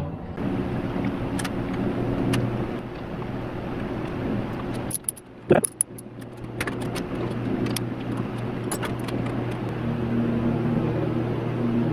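Scattered metallic clicks and clinks of bolts and hand tools being worked on an engine's alternator bracket, over a steady low hum.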